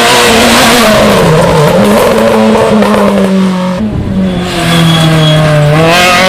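Rally car engine running hard on a special stage, its revs falling and rising through gear changes. The engine note drops off briefly about four seconds in, then climbs steadily again near the end as the car accelerates.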